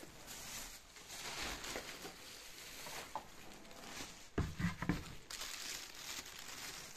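Rustling and crinkling of clothes, plastic and debris being stepped through and brushed against in a cluttered room, with a cluster of louder knocks about four and a half seconds in.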